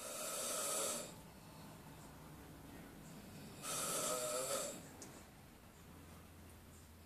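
A person snoring loudly: two long snores, each about a second, about three and a half seconds apart.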